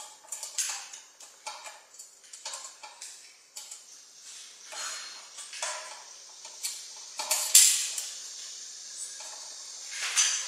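Irregular light clicks, taps and clinks as a circuit board and small screws are handled and fitted into a self-balancing scooter's metal chassis, with a sharper clack about seven seconds in.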